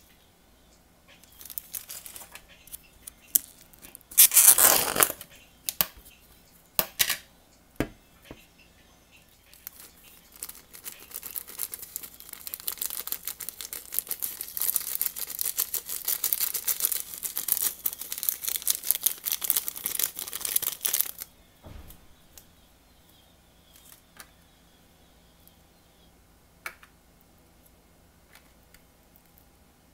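Small plastic charm bag crinkling in the hand and torn open with one loud rip about four seconds in. From about ten seconds in to about twenty-one, dense rapid rustling and crinkling as star sequins are shaken out of the bag onto the slime.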